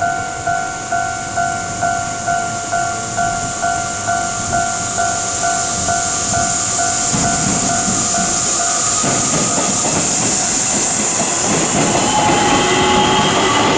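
Japanese level-crossing warning bell ringing, evenly repeated dings about twice a second. After about nine seconds the bell stops and an electric train's running noise takes over, with wheel clatter and a rising motor whine near the end.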